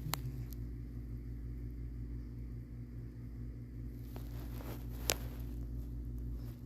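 Sleeping cat purring, a steady low rumble. Two sharp clicks, one just after the start and one about five seconds in.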